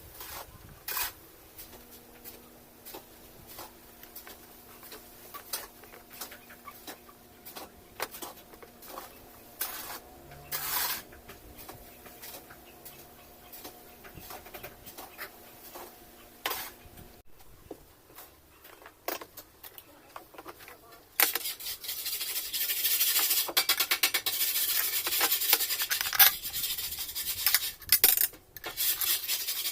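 Hand-work on metal washing-machine parts: scattered clicks, knocks and rubbing, then a loud, sustained rasping noise starting about two-thirds of the way through.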